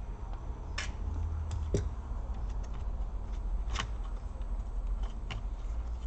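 A few scattered light clicks and taps as a screwdriver and gloved hands work on a laptop's plastic chassis and motherboard, over a low steady hum.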